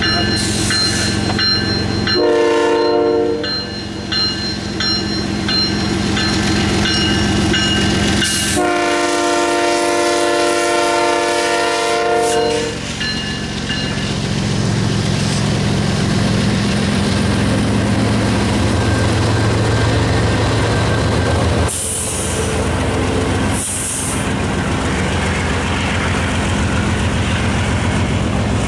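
Freight train passing behind GE diesel locomotives, led by an ES44DC. The lead unit's multi-note air horn gives a short blast about two seconds in and a long blast from about eight to thirteen seconds, the end of the grade-crossing signal, over the ringing of a crossing bell. The locomotives' engines then drone past, followed by the steady roll and wheel noise of the freight cars.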